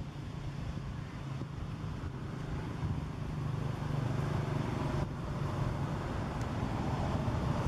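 Steady low rumble of background noise, getting slightly louder a few seconds in, with no distinct sounds standing out.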